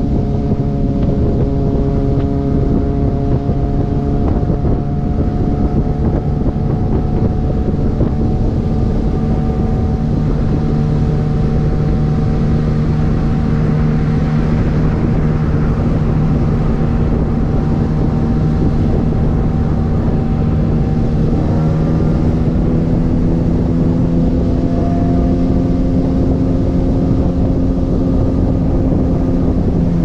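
2005 Yamaha YZF-R1's inline-four engine through straight-piped exhaust, running steadily at freeway cruising speed, with wind noise on the microphone. About two-thirds of the way in the engine note briefly changes, then rises slowly.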